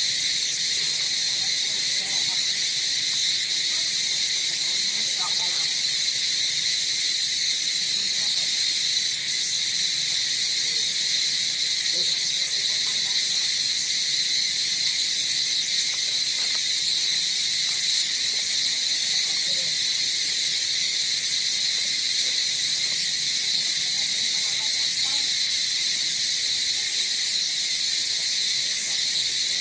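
Steady, high-pitched buzzing of an insect chorus, holding one even pitch without a break.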